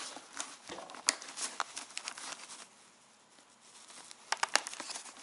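Rustling of a snowmobile helmet's fabric chin pad and light clicks of its plastic shell as the pad is pressed onto its locating pins, with a quick cluster of sharper clicks about four seconds in.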